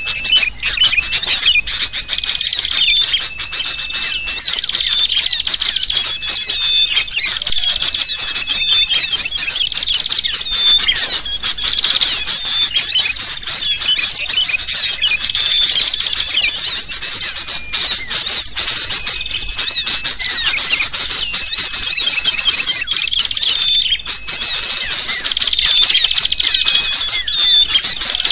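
Bird-lure recording of sooty-headed bulbuls (kutilang) calling noisily, mixed with the chirps and twitters of many small birds in a dense, continuous chorus of high, chattering calls and short whistles.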